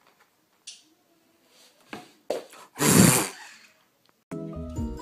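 A few light knocks and rustles, then a loud, short thump with a rush of noise about three seconds in, as a cat drops off the edge of a bed. Music with a melody starts near the end.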